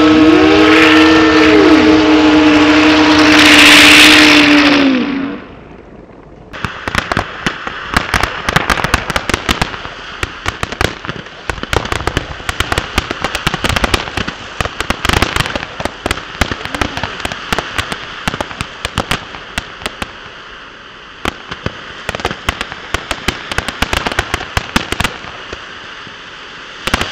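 Ground-spinning fireworks whistling in several steady tones, some gliding, with a loud hiss about four seconds in; they stop after about five seconds. After a short pause, a fountain firework crackles with dense rapid pops, thinning out near the end.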